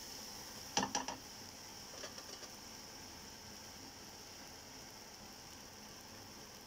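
A spatula knocks sharply against a frying pan three or four times about a second in, then clicks lightly against it around two seconds in, as the stirring of a thick onion-and-tomato masala stops. A faint steady hiss runs underneath.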